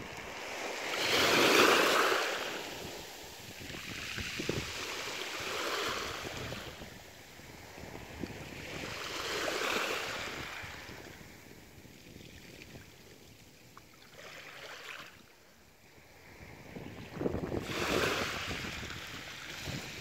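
Small waves lapping and washing onto a beach, rising and falling in several slow swells, with some wind rumble on the microphone.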